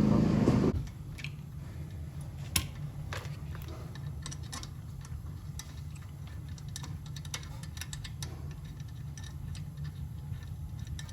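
Scattered light metallic clicks and taps of brake caliper parts, pad spring clips and tools being handled, over a steady low hum. A louder droning sound stops under a second in.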